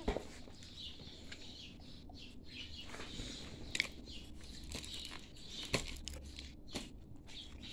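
A hard biscuit dog treat being snapped and crumbled by hand on a plastic cutting board: a few sharp cracks, one right at the start and others about four, six and seven seconds in.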